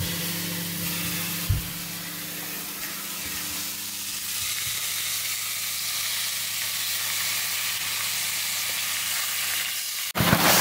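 Minced-beef patties sizzling steadily in a hot ridged grill pan, just laid in to fry, with one knock about one and a half seconds in and a steady low hum underneath. The sizzle cuts off near the end.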